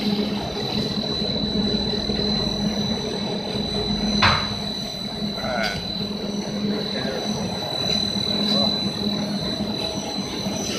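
Wood sanding machine with disc and roller sanding brushes running steadily: a constant hum with a high whine over a rushing noise, and one sharp knock about four seconds in.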